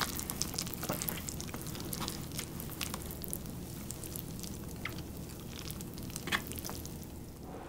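Chopsticks stirring and lifting instant cup noodles in broth: a steady wet crackle with many small clicks as the chopsticks knock against the cup.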